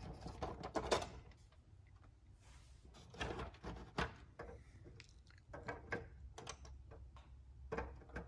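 Scattered soft clicks and taps of steel needle-nose pliers and small plastic parts being handled, coming in a few short clusters.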